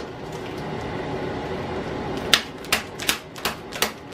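Dry pancake mix being stirred in a plastic bowl, a steady soft scraping, then about two seconds in a run of sharp clicks and crinkles, about three a second, from handling the utensil and the Kool-Aid packets.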